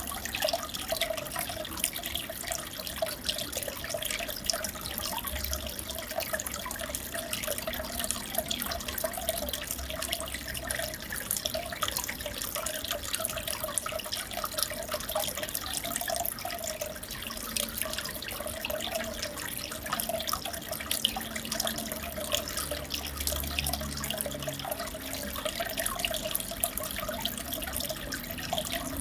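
Aquarium water trickling and bubbling steadily, a dense patter of small drips and bursting bubbles over a wavering gurgle.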